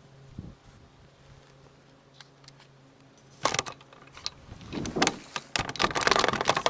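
Scraper working old tar off a camper roof: a few sharp knocks and scrapes about halfway through, then a dense run of scraping near the end.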